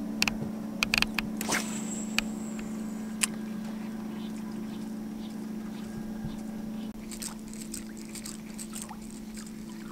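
Steady low hum of a fishing boat's motor, with a few sharp clicks in the first second and a half.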